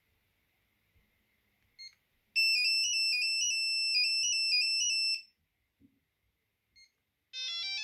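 Alcatel BC2 mobile phone playing a ringtone through its small speaker. A short beep comes first, then a tune of quickly alternating high notes, one note at a time, for about three seconds. Another short beep follows, and near the end a rising run of notes starts the next ringtone.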